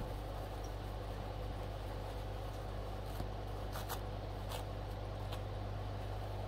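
A steady low hum, with a few faint light clicks in the second half.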